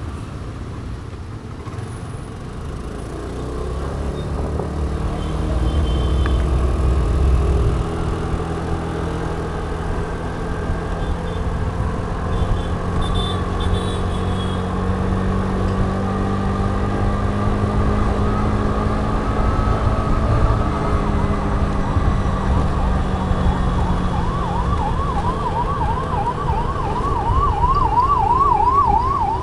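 Scooter engine running through traffic, its pitch rising and falling as it speeds up and eases off. Near the end a siren starts up, warbling quickly up and down a few times a second.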